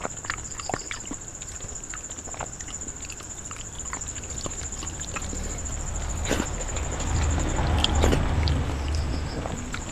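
Fingers mixing rice and curry on a steel plate, with small wet squishes and clicks. In the second half comes close-miked chewing of a large mouthful of rice. A steady high-pitched whine runs underneath.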